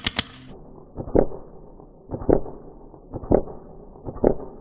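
Airsoft rifle firing a rapid burst of shots, about six a second, that stops about half a second in. Then four deep, muffled thuds about a second apart.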